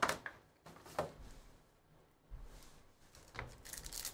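Trading card boxes and packs handled on a table: a short knock at the start and another about a second in, then crackly rustling of a pack wrapper being opened near the end.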